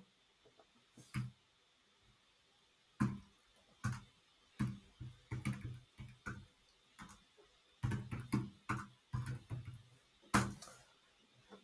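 Computer keyboard typing: faint, irregular keystrokes in short clusters as ticker symbols are typed into spreadsheet cells.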